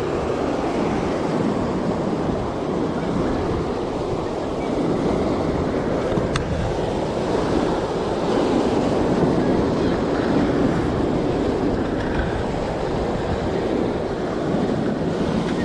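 Surf breaking and washing over rocks, a steady rushing that swells and eases, with wind buffeting the microphone. A single sharp click about six seconds in.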